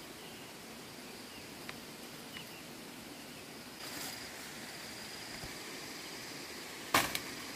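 Steady high-pitched drone of insects such as crickets or cicadas, with one sharp knock about seven seconds in.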